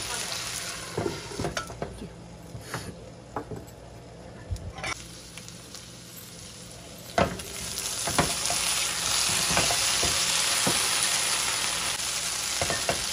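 Chicken pieces frying in butter and oil in a non-stick frying pan, sizzling, with a silicone spatula scraping and tapping against the pan as they are turned. A knock about seven seconds in, after which the sizzling grows much louder and steady.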